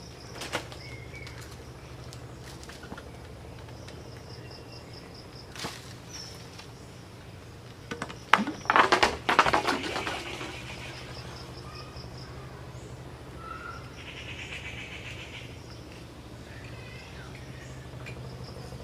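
Rural outdoor ambience: insects chirping in repeated high trills over a steady low hum, with bird chirps. About eight seconds in, a loud burst of scuffling noise lasts about two seconds.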